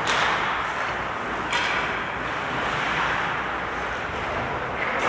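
Ice hockey rink during play: a steady, echoing hiss of skates on the ice and distant play. Two sharper sounds cut through it, one at the start and one about a second and a half in.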